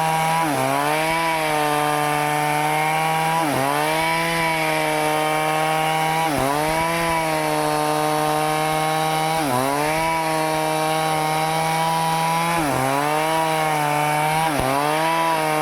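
Stihl chainsaw running at high revs while cutting teak wood. Its engine pitch dips sharply and recovers about every two to three seconds as the chain bites into the cut.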